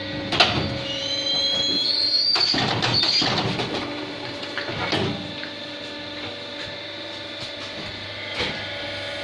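Automatic gallon-cap plastic molding machine running through a cycle: a steady machine hum with a high whine rising about a second in, and several clunks and clicks as it works.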